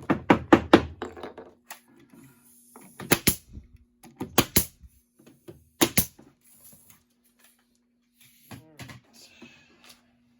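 Sharp knocks on wood from cabinet assembly: a quick run of about half a dozen strikes in the first second, then three pairs of sharp knocks spaced a little over a second apart.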